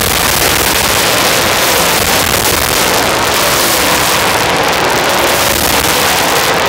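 Dirt track race cars running at speed around the oval, several cars passing close on the front straight, their engines loud and steady.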